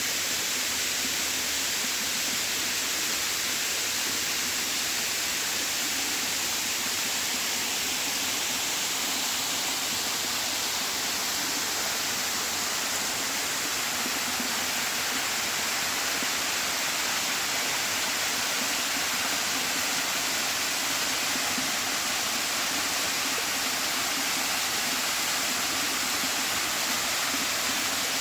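Creek water cascading down small waterfalls over rocks in a steady, unbroken rush.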